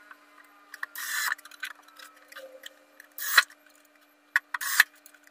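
A screw being driven by hand with a screwdriver into the wooden cabinet side to fix a concealed hinge's mounting plate: a few short rasping turns with sharp clicks.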